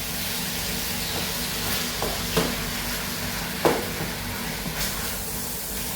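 Ground beef sizzling in a frying pan while it is stirred, with a few light knocks and scrapes of the spoon against the pan, the loudest about three and a half seconds in.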